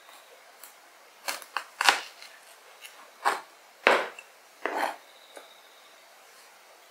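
Kitchen knife cutting an onion on a plastic cutting board: about six slow, uneven knocks and scrapes of the blade through the onion onto the board, the loudest about two seconds in.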